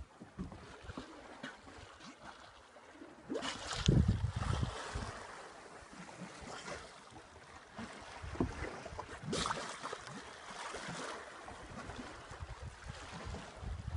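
Wind buffeting the microphone over water lapping and sloshing against the side of a boat at sea, with two louder rushes about three and a half and nine and a half seconds in.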